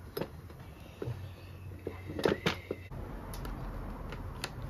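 Small metallic clicks and taps of a valve spring compressor and fingers working on a Honda C70 cylinder head while fitting the valve collets, with a loud cluster of clicks about halfway and a few more near the end.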